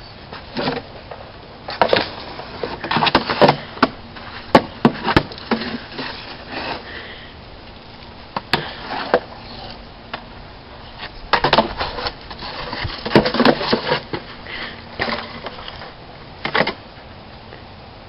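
A sword striking things in a sandbox: sharp knocks and whacks coming in irregular clusters, with gaps of a second or two between them.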